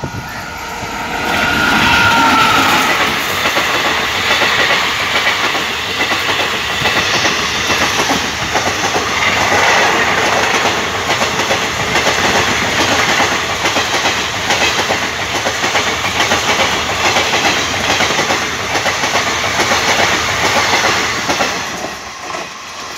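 Indian Railways express passenger train passing close by at high speed, its coach wheels clattering rapidly over the rail joints. A brief falling whine comes about two seconds in as it begins to pass, and the noise eases off near the end.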